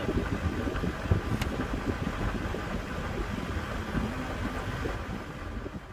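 Low, uneven rumble of outdoor traffic noise mixed with wind buffeting the microphone, with one brief click about a second and a half in.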